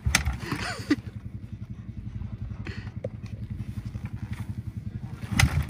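Suzuki RM-Z250 four-stroke motocross bike being kick-started: two hard kicks, one just after the start and one near the end, over a steady, rapid low pulsing.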